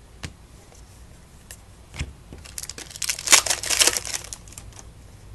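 A trading card pack wrapper being torn open and crinkled by hand, with a few light taps and handling clicks before it; the crinkling comes in a burst from about halfway through and fades about a second later.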